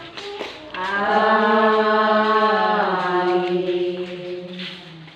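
Voices chanting a slow hymn in long held notes. A note starts about a second in, drops a little in pitch midway, and fades out near the end.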